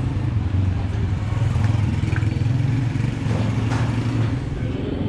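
Street traffic: a motor vehicle engine running close by, a steady low drone.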